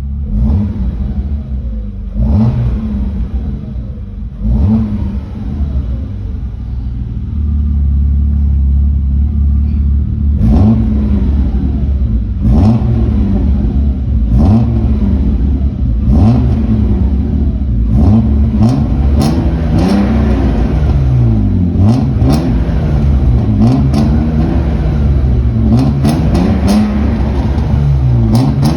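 BMW E36 325's non-VANOS M50B25 2.5-litre straight-six on its stock exhaust, idling and being blipped: quick revs that rise and drop back to idle, a few at first and then many in quick succession near the end.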